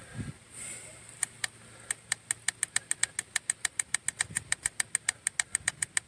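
WORKSITE 20-volt cordless tire inflator's compressor running as it pumps a bus tire toward 105 PSI, working against high pressure. From about a second in, a rapid, regular clicking of about five a second runs alongside it.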